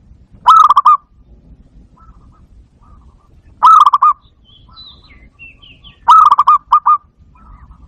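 Barred dove (bato-bato) cooing: three short, quick trilled coo phrases about three seconds apart, the last followed by two brief extra notes.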